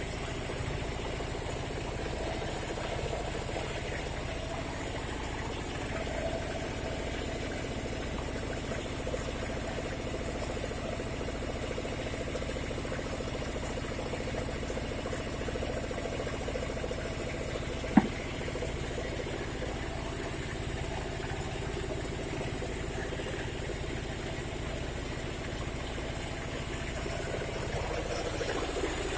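An engine running steadily with an even low throb. One sharp knock about eighteen seconds in.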